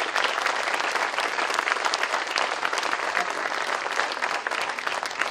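A large seated audience applauding: many hands clapping together in a dense, steady patter.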